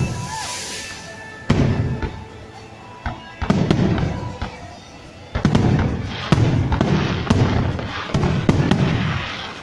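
Aerial firework shells bursting overhead: a series of about seven deep booms, one to two seconds apart, each fading with a crackling tail.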